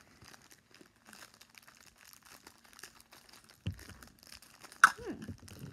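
Plastic wrapper crinkling and tearing as a small toy is unwrapped by hand, with a soft thump a little past halfway and a sharp crackle near the end.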